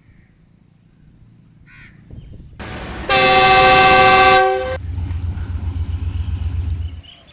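A locomotive horn sounds one loud blast of about a second and a half, a few seconds in, followed by a low, pulsing diesel engine rumble that stops near the end.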